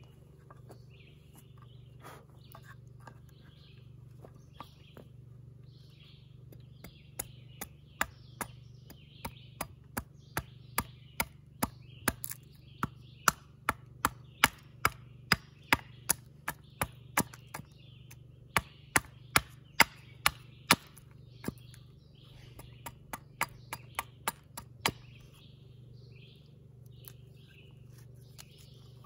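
Axe chopping a riven catalpa billet into a spoon blank: a run of sharp wooden strikes, about two a second, beginning about seven seconds in and stopping a few seconds before the end. Birds chirp in the background throughout.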